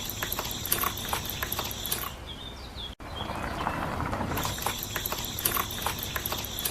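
Small mechanism rattling and clicking irregularly. The same few seconds play twice, with a sharp break about three seconds in.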